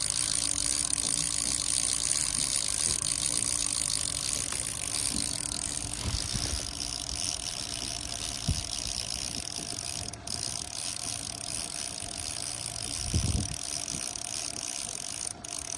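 Fishing reel being cranked in steadily, a continuous fast mechanical ratcheting whir, with a boat motor running underneath.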